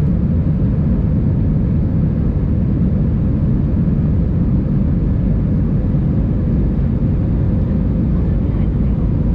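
Steady low rumble inside the cabin of an Airbus A320-232 airliner: engine and airflow noise droning evenly, with a faint steady hum above it.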